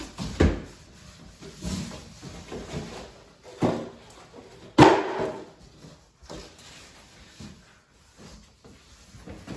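Bike delivery box and packaging being opened and handled: a series of knocks and thumps with rustling between them, the loudest about five seconds in.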